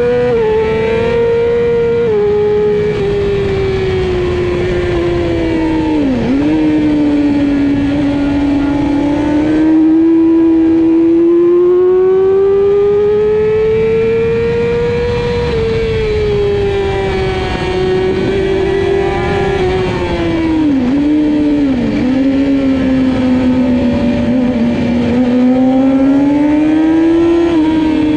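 Middleweight supersport race motorcycle's engine at race pace, heard from on board: its pitch falls, climbs steadily for several seconds as the bike accelerates, then drops under braking and rises again near the end. Brief sharp dips in the engine note come about six seconds in and twice around twenty seconds, from gear changes.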